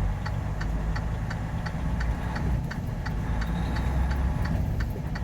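Inside a semi-truck cab: the diesel engine runs with a steady low rumble while the turn signal ticks evenly, about three clicks a second.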